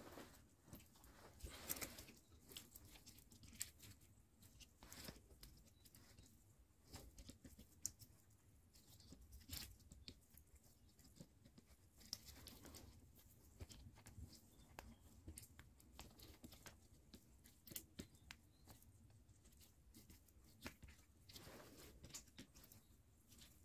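Faint, irregular clicks and rustles of hands working bonsai wire around the branches and leaves of a small lemon tree.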